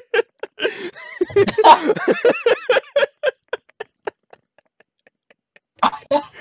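Men laughing hard in quick, rapid bursts that die away about four seconds in.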